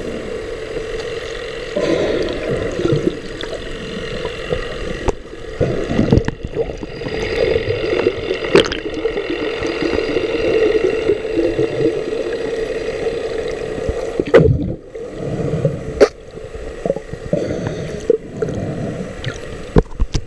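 Muffled underwater sound picked up through a camera housing: a steady hum with water swirling and gurgling, and a few sharp knocks, the loudest in the last third.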